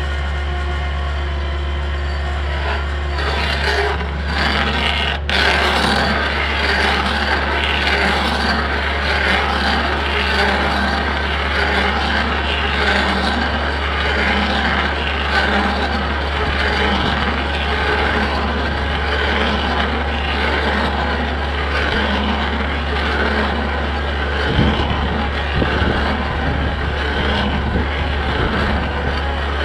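Hydraulic stump drill on a mini excavator, running against a steady diesel engine drone. From about three seconds in it grinds into the tree stump, a rough chipping noise that pulses about once a second as it bores down and throws out wood chips.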